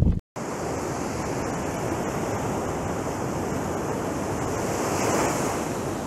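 Sea surf: waves breaking and washing up the shore in a steady rush, swelling about five seconds in as a larger wave breaks. It opens with a split second of wind buffeting the microphone, cut off abruptly.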